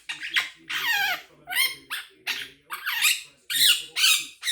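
Quaker parrot (monk parakeet) giving a rapid run of loud, harsh squawks and chattering calls, a few of them sliding down in pitch.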